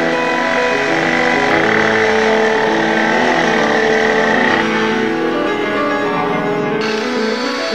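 Background music: an instrumental tune of sustained notes changing pitch throughout.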